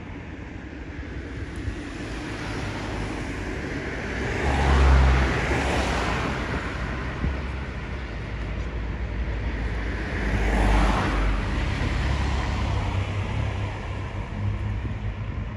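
Two road vehicles passing one after the other, each swelling up and fading away, the first about five seconds in and the second about eleven seconds in, over a steady low traffic rumble.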